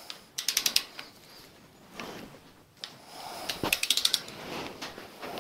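Ratchet wrench clicking in two quick runs, about half a second in and again near four seconds, as the handle is swung back on a stud-removal tool while undoing the head studs of a Ford flathead V8 block.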